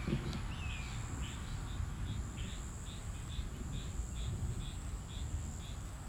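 Insects drone steadily at a high pitch. Two short falling whistles come at the very start, then a run of short chirps, a little over two a second, from about a second in. A low rumble sits underneath.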